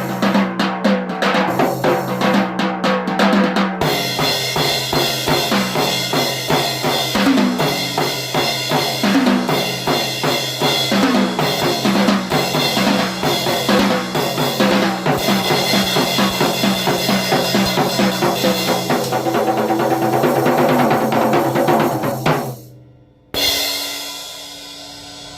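Drum kit played fast and busy: bass drum, snare and toms under a wash of cymbals. It stops about 22 seconds in, then a single last hit rings out and fades near the end.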